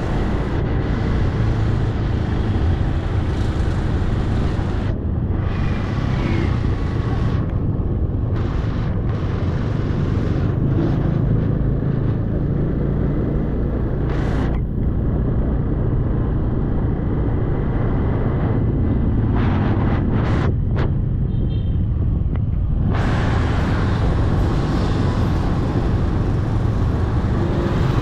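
Steady rush of wind on the microphone over a motorbike's running engine while riding along a street.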